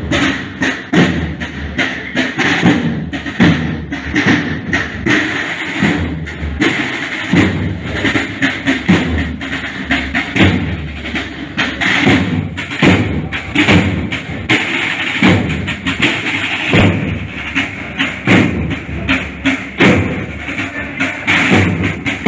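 Drum section of a marching band of bugles and drums playing a steady march cadence on snare drums, with about two strong beats a second.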